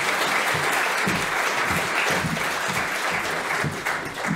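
Audience applauding: many hands clapping steadily, beginning to die down near the end.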